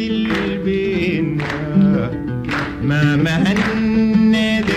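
Instrumental passage of an old Sudanese song recording: melody instruments play a sliding tune over held notes, with plucked strikes about once a second.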